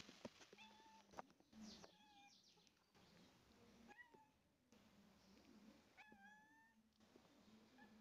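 Domestic cats giving faint, short meows, several in a row a second or two apart, each one bending in pitch.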